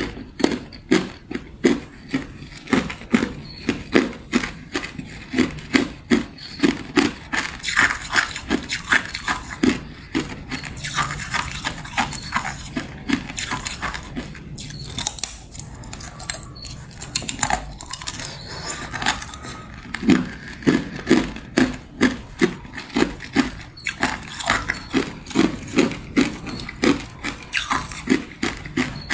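Teeth biting and crunching thin, brittle sheet ice moulded as a grid, a run of sharp crunches about two a second, thinning out to softer chewing midway before the crunching picks up again.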